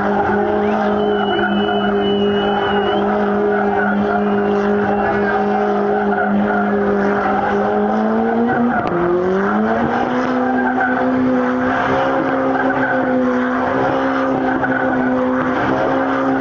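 Mitsubishi Lancer Evo's turbocharged four-cylinder engine held at steady high revs as the car spins continuous donuts, tyres skidding and squealing on the tarmac. About halfway through the revs dip briefly, then settle at a slightly higher steady note.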